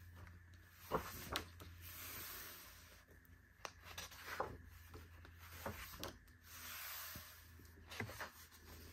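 Pages of a thick glossy photobook being turned by hand: soft paper swishes and rustles, with several light sharp ticks as the pages flip over and settle.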